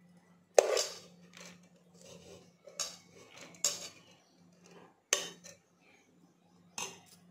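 A metal spoon clanking and scraping against aluminium cooking pots as cooked basmati rice is scooped from one pot and layered into the other: about five sharp clanks, the loudest about half a second in.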